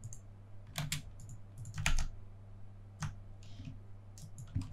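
Scattered clicks of a computer keyboard and mouse: a handful of separate keystrokes and clicks about a second apart, with a short cluster near the end, over a faint low hum.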